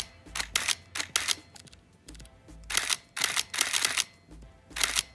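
Nikon F100 35mm SLR firing its shutter repeatedly, each release a short mechanical burst as the built-in motor advances the film. The bursts often come in quick pairs, with short gaps between them.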